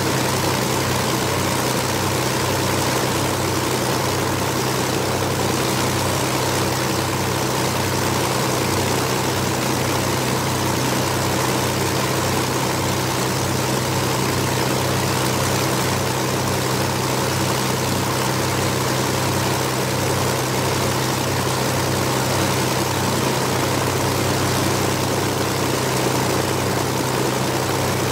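Twin Rolls-Royce Merlin V-12 engines of a de Havilland Mosquito running together with propellers turning, steady, with no change in speed and a regular low throb.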